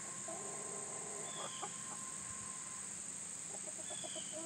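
Chickens clucking and calling softly, with a drawn-out call near the start, short clucks in between, and another drawn-out call near the end.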